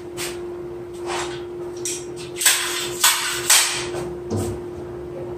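Hammer blows on wood during cabinet carpentry: a few lighter knocks, then three loud strikes about half a second apart in the middle.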